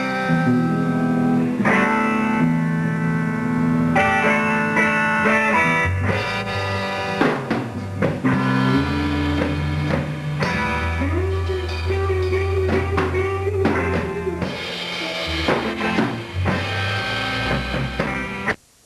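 Live band playing electric guitar, bass and drum kit through a PA, cutting off suddenly near the end.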